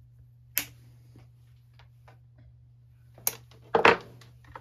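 Side cutters snipping through a length of fuel line with a sharp click about half a second in. Near the end come a couple of knocks and a louder clatter as the metal cutters are set down on a wooden workbench.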